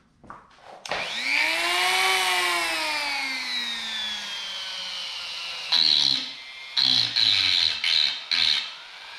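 Handheld rotary tool running: its motor whine climbs as it spins up and then slowly sinks in pitch, and from a little past the middle its bit grinds against a wooden strip in a series of short bursts.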